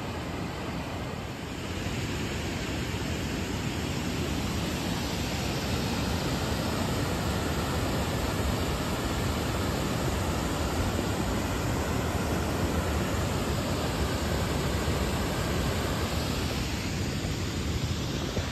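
Fast spring-fed river water rushing over a low rocky cascade. The rushing noise is steady and grows louder about two seconds in.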